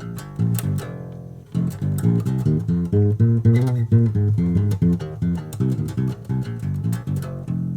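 Twelve-string guitar converted into a four-string bass and strung with guitar strings, plucked in a quick improvised run of low notes. There is a short break about a second and a half in.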